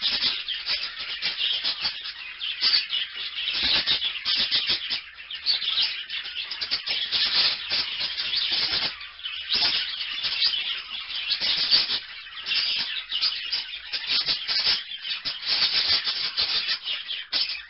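A flock of small parakeets chattering and chirping non-stop in a dense, high-pitched twitter.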